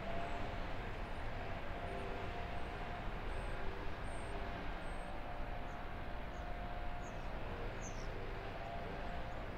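Outdoor ambience: a steady distant rumble with a faint drone running through it. Small birds chirp now and then in the second half.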